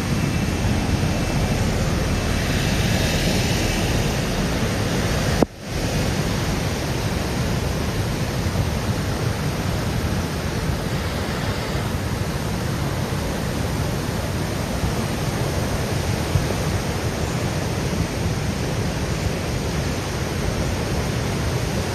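Steady rushing of fast floodwater, with a sharp click and a brief drop in level about five and a half seconds in.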